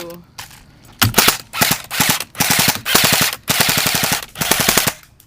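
Airsoft M4 electric gun firing on full auto in a string of short bursts, each a rapid run of clicks, starting about a second in and stopping just before the end.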